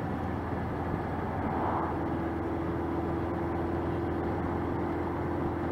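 Honda CB700SC Nighthawk inline-four motorcycle engine running at low speed, heard with road and wind noise as a steady low drone. A thin steady tone joins about a second and a half in.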